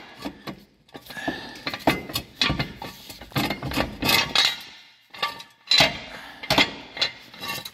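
Hydraulic floor jack being pumped to lift the car, giving a series of irregular metallic clanks and clinks.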